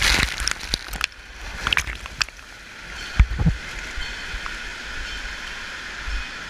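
Water rushing and splashing as a rider slides through the wet runout lane at the end of a body water slide. A few sharp knocks come in the first two seconds and a thud about three seconds in, over steady running water.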